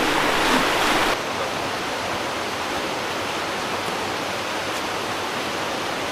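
Rushing water of a small stream cascading over rock slabs, an even hiss. About a second in it drops to a slightly quieter, steady rush.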